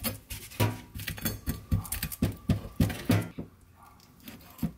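Kitchen knife knocking and scraping on a wooden cutting board as a hairtail (cutlassfish) is gutted and trimmed: a run of short knocks about three to four a second, dying away about three seconds in, with one more knock near the end.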